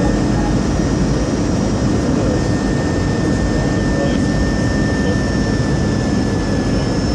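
Jet airliner engines and airflow: a steady roar with a faint steady high whine running through it.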